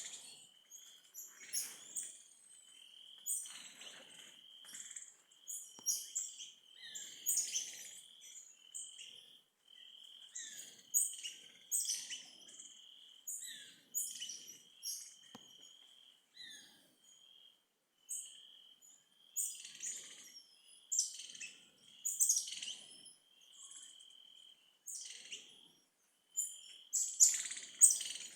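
Birds singing: short, high chirping phrases repeating every second or two, several of them with a shrill trilled note.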